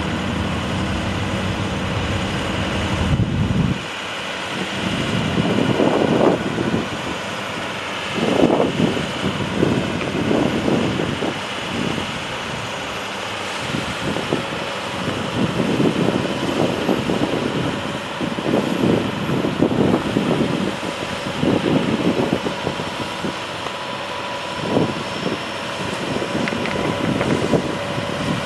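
The truck's International DT466 diesel engine runs to power the crane while the boom is worked. Its steady low hum drops about four seconds in, and after that the sound rises and falls unevenly.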